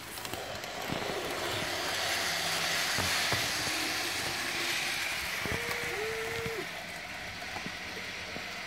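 N-scale model train running on curved track: a steady whirr and rattle from the small locomotive and wagons that grows louder over the first few seconds and then eases. Two short squeaks sound a little past halfway.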